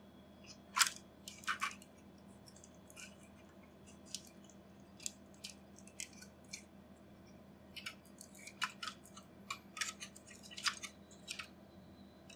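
Scattered clicks and light knocks of a mini-PC motherboard being wiggled and pressed back into its sheet-metal case: a sharp one about a second in, a couple more soon after, then a run of them in the second half.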